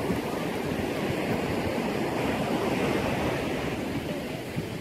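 Sea surf washing up on a sandy beach in a steady rush, with wind rumbling on the microphone.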